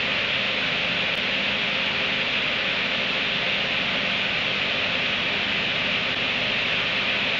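A steady, even hiss, strongest in the upper middle of the range, with no breaks or sudden sounds.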